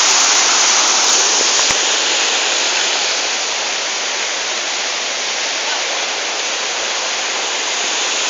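Waterfall's falling water rushing steadily, a dense hiss that eases a little midway.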